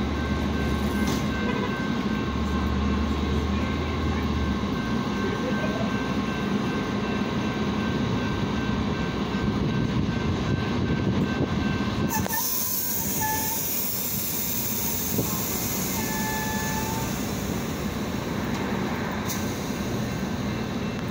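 Metra bilevel commuter train idling at a station platform with a steady low hum. About halfway through, a loud hiss starts and lasts several seconds, with two short beeps during it.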